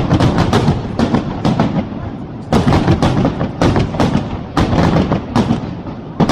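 Fireworks finale: aerial shells bursting in quick succession, several sharp bangs a second overlapping one another, with a brief lull about two seconds in.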